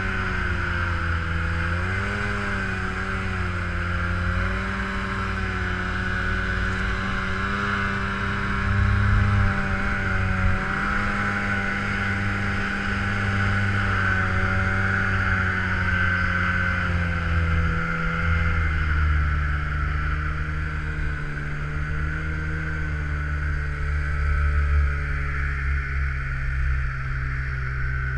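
Polaris snowmobile engine running under way through deep snow, its pitch wavering up and down with the throttle and easing lower in the last third.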